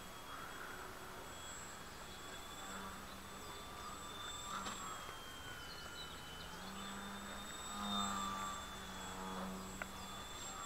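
Small electric RC aerobatic plane's Hyperion 1500 Kv motor and 8×3.8 slow-fly propeller buzzing faintly in the air. The buzz comes and goes with the throttle, grows stronger in the second half and is loudest about eight seconds in.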